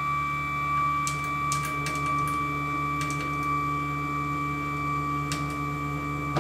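Closed-loop stepper motor driving the Z axis of a Sieg X2 CNC mini mill slowly up its ball screw: a steady whine with a few faint ticks, stopping abruptly near the end. The ball screw is chattering and the axis runs rough near the top of its travel.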